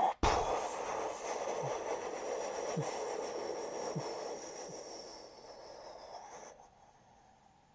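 Mouth-made sound effect: a long breathy rushing noise that starts suddenly, fades slowly over about six seconds and then cuts off, with a few faint low blips along the way.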